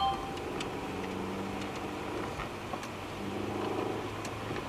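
Car engine and road noise heard inside the cabin while driving, with a low steady hum and an engine tone that comes and goes twice.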